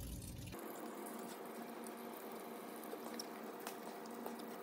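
Faint wet slicing of a knife cutting a green iguana's hide away from the carcass, with a few soft clicks over a steady low hiss.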